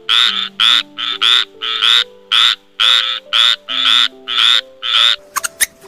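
A frog croaking, a rapid run of short calls about two or three a second, some in quick pairs, over soft background music.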